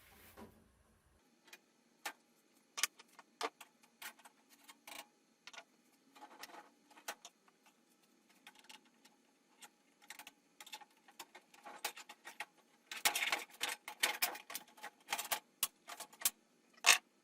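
Metal oven-door parts and screws being handled during disassembly: scattered small clicks and clinks, a dense run of them about thirteen seconds in, and one sharp knock near the end.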